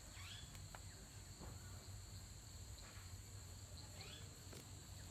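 Faint steady insect chorus, an even high trill throughout, with a few faint short chirps.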